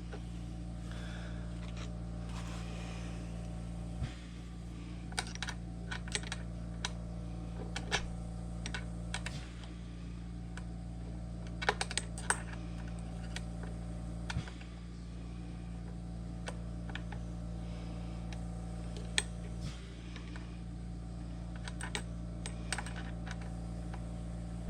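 Scattered small clicks and taps from parts and hand tools being handled while a key-cutting machine is reassembled, over a steady low hum.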